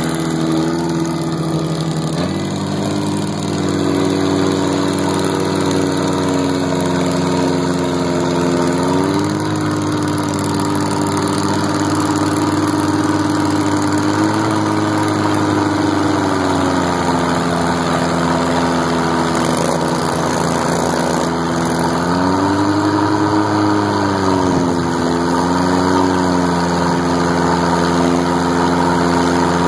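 Mudd-Ox Max IV amphibious ATV's engine running at low throttle as the machine swims. Its pitch steps up slightly a couple of seconds in, then dips and rises a little several more times as the throttle changes.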